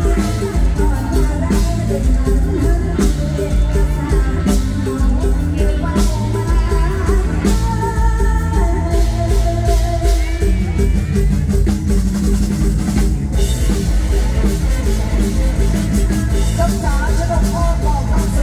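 Live mor lam band playing a song with a steady drum-kit beat and heavy bass, with a singing voice at times.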